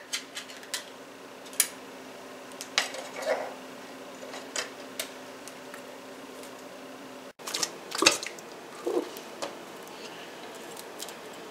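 Scattered clicks and clinks of metal soup cans being handled and opened, then a cluster of clacks and soft scraping as thick condensed cream soup is scraped out of a can with a spatula into a glass bowl.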